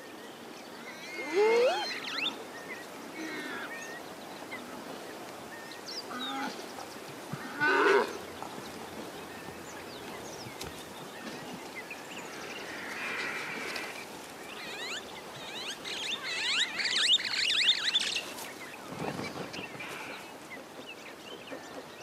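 Warthog squealing as a lioness eats it alive: scattered high, wavering squeals, then a dense run of rapid squeals about three-quarters of the way through, over a faint steady hiss.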